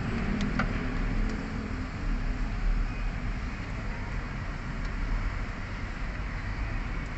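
Steady low background rumble, with a few light clicks about half a second in.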